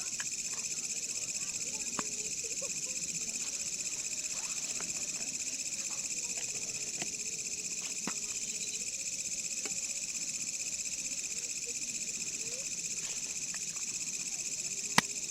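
A steady night chorus of crickets or other insects, a continuous high-pitched trill, with a few scattered sharp clicks, the loudest just before the end.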